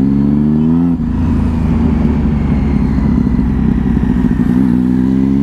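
Triumph 675's three-cylinder engine under acceleration, heard from the rider's seat. The pitch climbs over the first second, breaks off at a gear change about a second in, runs on steadily, then climbs again near the end.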